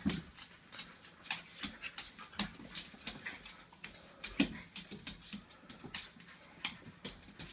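Two border collies, an adult and a young puppy, play fighting: quick irregular scuffling clicks and snaps mixed with short dog whimpers and noises, the loudest about four and a half seconds in.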